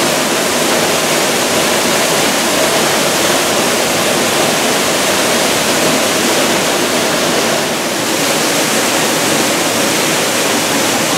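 Waterfall pouring onto rocks and a pool, heard from right beside it: a loud, steady rush of falling water.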